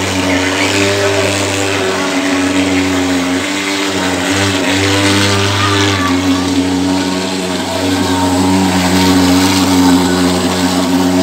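Portable thermal fogging machine running with a loud, steady drone while it blows out insecticide fog, its pitch shifting slightly a couple of times.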